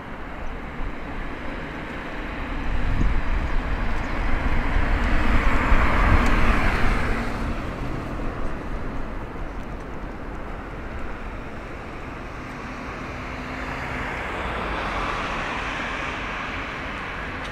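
Passing road traffic over a steady low rumble. One vehicle builds up and fades away a few seconds in, and a weaker one passes near the end.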